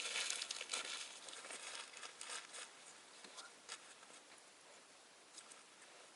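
Close, crinkly rustling of dry material being handled, loudest in the first couple of seconds, then dying down to faint rustles and a few soft ticks.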